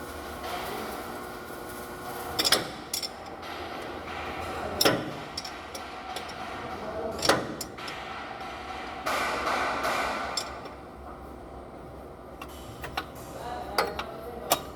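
Hand tools knocking and clinking on engine metal: three sharp knocks about two and a half seconds apart among lighter clicks, with a short stretch of hiss past the middle.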